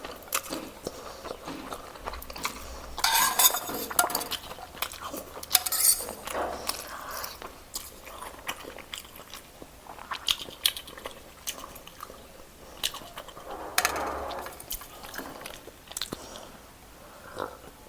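Eating sounds: cutlery clinking and scraping on a plate, with bites and chewing in between.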